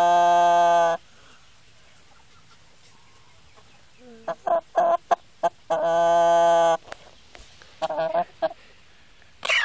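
White hen clucking, with clusters of short clucks about four to five seconds in and again near eight seconds. Two long, steady, even-pitched tones also sound, one at the start and one about six seconds in.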